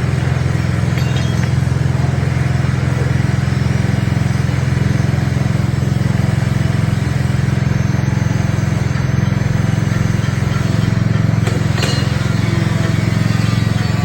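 Small Honda petrol engine running steadily at constant speed, driving a coconut-milk press machine, with one brief knock near the end.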